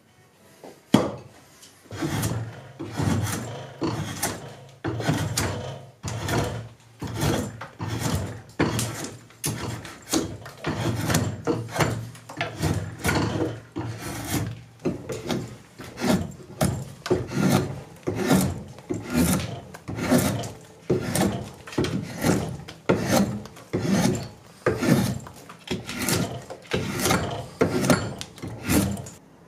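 A steel rasp scraping a wooden handle blank in steady back-and-forth strokes, about two a second. About a second in there is one sharp chop of a blade into wood.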